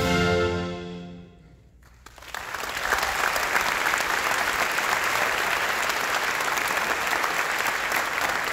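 A wind band's final held chord, cut off and dying away into the hall's reverberation, then after a short pause the audience breaks into steady applause about two seconds in.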